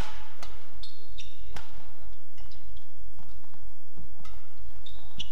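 Badminton rally: several sharp cracks of rackets striking the shuttlecock, with short, high squeaks from players' shoes on the court and a steady low hum underneath.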